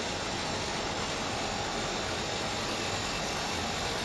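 HO-scale model freight train running on the track: a steady, even running noise that does not change as the cars roll past.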